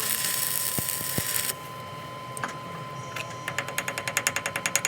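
Workshop machinery: a loud hiss cuts off suddenly about a second and a half in, then a rapid, even mechanical ticking of about six or seven a second starts near the end.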